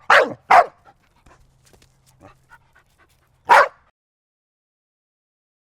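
A dog barking: two quick barks at the start, then faint whimpering sounds, then a single bark about three and a half seconds in.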